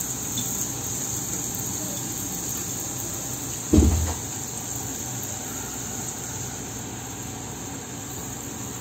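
Hot oil sizzling steadily around a stuffed dough pastry deep-frying in a small iron kadai, with oil being spooned over it. A single low thump about four seconds in.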